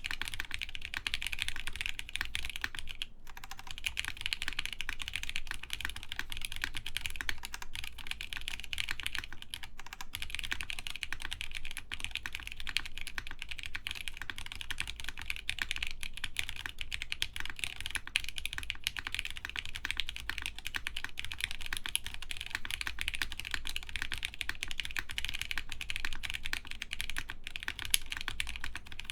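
Continuous typing on an Axiom Studios Typ60 mechanical keyboard with OP Black switches lubed with 205g0, 65 g springs and a carbon fibre half plate: a dense, even run of key clacks, broken by short pauses about three seconds in and again near the tenth second.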